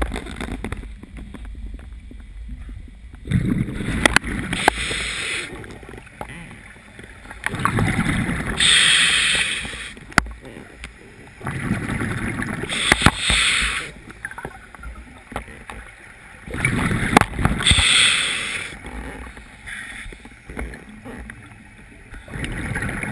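Scuba diver breathing through a regulator underwater: slow, repeating breaths, each a rush of hiss through the regulator with a low bubbling rumble of exhaled air, about every four to five seconds.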